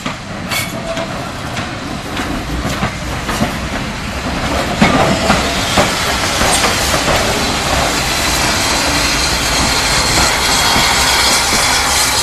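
Train running on the rails with wheel clatter. It grows louder over the first half, then stays steady, with a few sharp clanks near the middle.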